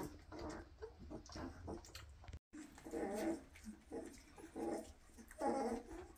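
Two-and-a-half-week-old Weimaraner puppies whimpering and crying in a string of short, pitched squeals, the loudest about five and a half seconds in.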